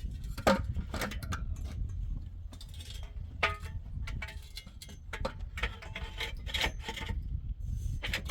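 Building work by hand: irregular knocks, clinks and scrapes of tools and building materials over a steady low rumble, with one sharp knock at the very end.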